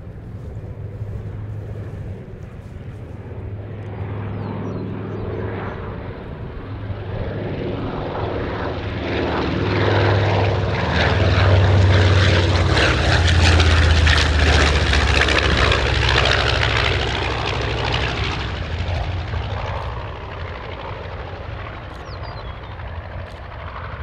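North American B-25 Mitchell bomber's twin Wright R-2600 radial engines droning on a low flyby. The sound grows louder to a peak about halfway through as the aircraft passes, the pitch dropping as it moves away, then fades.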